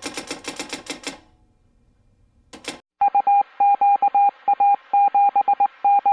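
Sound-effect title audio: a quick run of sharp typewriter key clicks, then from about halfway a high beep keyed on and off in short and long pulses, Morse code style, over a faint radio hiss.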